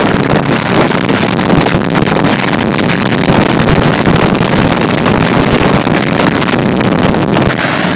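1993 Dodge Ram's Cummins 5.9-litre six-cylinder turbo diesel running as the pickup drives along, heard with heavy wind buffeting on a microphone held out the side window. It is a steady, loud roar that eases slightly near the end.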